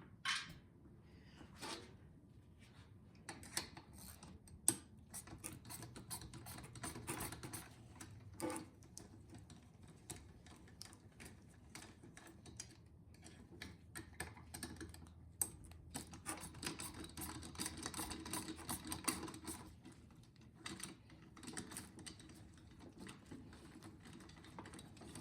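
Faint clicks, taps and short runs of rapid clicking from hand tools and small metal and plastic parts as a two-stroke leaf blower's cover and exhaust muffler are unbolted and removed.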